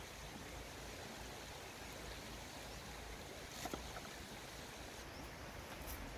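Steady outdoor background hiss, with a few light knife clicks as taro is cut, about three and a half seconds in and again near the end.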